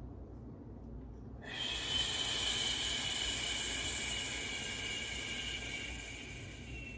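A person's long, forceful exhale through pursed lips: a steady hiss with a faint whistle that starts about a second and a half in and slowly fades.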